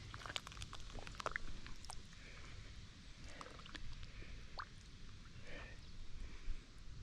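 Water dripping and splashing, with small clicks and knocks, busiest in the first two seconds and scattered after.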